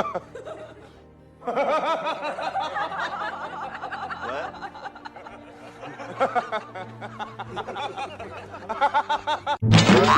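Music with people snickering and laughing, starting about a second and a half in after a short quiet gap.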